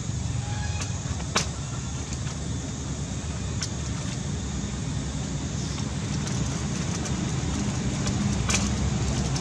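Steady low rumbling background noise, with a few sharp clicks, the loudest about a second and a half in.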